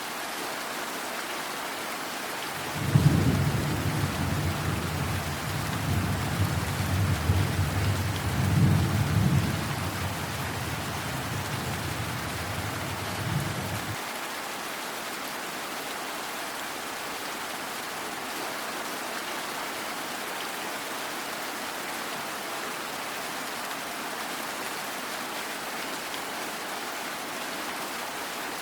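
Steady rain with a long roll of thunder. The thunder starts with a sharp crack about three seconds in, rumbles on with further peaks for about eleven seconds, then stops abruptly, leaving only the rain.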